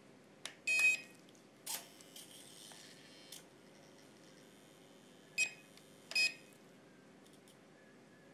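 Three short electronic beeps from the SJRC S20W drone set, one about a second in and two close together around five and six seconds, during calibration. A sharp click and some light handling rustle come between them.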